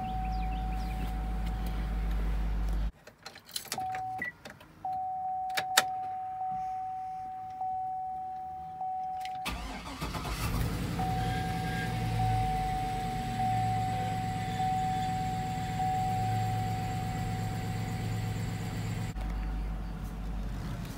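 2004 GMC Yukon Denali's dashboard chime dinging about once a second, then the truck's 6.0-litre V8 cranking and starting about ten seconds in and settling into a steady idle.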